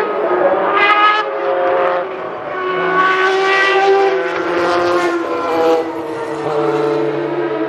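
Toyota TS010's 3.5-litre V10 racing engine at high revs. The pitch shoots up about a second in, holds a high wail through the middle, then drops to a lower, steadier note near the end.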